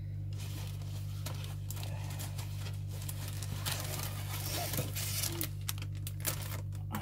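Plastic packaging rustling and crinkling as it is handled, with small clicks, busier in the second half, over a steady low hum.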